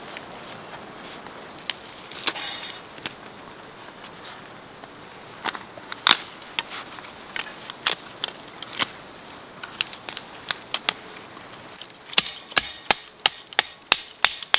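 Firewood being split into kindling with a knife driven by a wooden baton: scattered sharp knocks and cracks of wood, then a quick run of about three strikes a second near the end.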